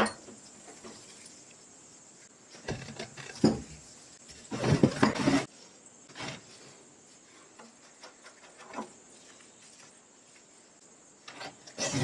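Knocks and clatter of cast-iron button press parts being handled and set down on a wooden workbench, in a few short bursts with quiet stretches between.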